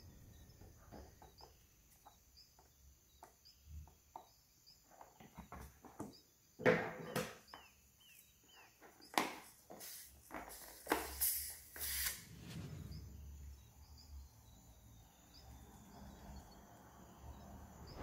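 Rubber balloons being handled and snipped open with scissors over a plastic bowl, with scattered light clicks and taps and one sharp knock about a third of the way in. Around the middle comes a hissing, crackly run as fine blue glitter from the cut balloon pours into the bowl.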